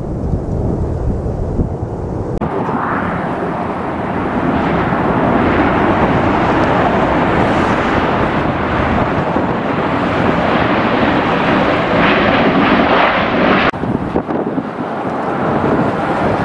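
Jet airliner passing close by, its engines making a loud, steady rush that swells about two seconds in and eases near the end, with wind buffeting the microphone.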